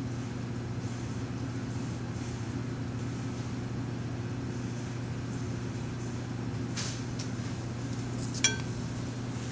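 Steady low mechanical hum in the room, with a brief soft rustle about seven seconds in and a single light, ringing clink of glass or metal shortly after.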